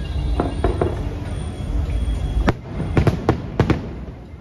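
Aerial fireworks shells bursting overhead: about half a dozen sharp bangs in quick succession, starting about halfway through, over a steady low rumble.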